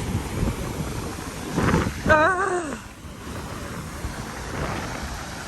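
Wind buffeting the microphone over the wash of sea surf. About two seconds in comes a short wavering "ahh" from a voice that falls away.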